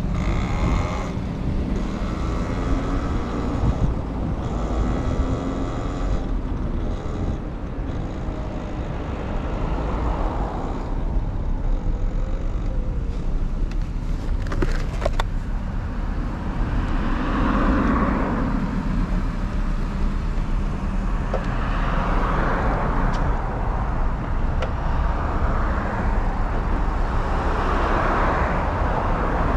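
Riding noise from a Talaria Sting R MX4 electric dirt bike on the road: a steady rush of wind and tyre noise with traffic around it. In the second half it swells and fades every couple of seconds.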